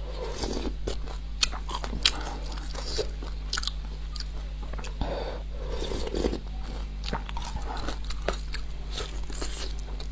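Close-miked eating sounds: chewing with irregular wet clicks and mouth smacks, over a steady low hum.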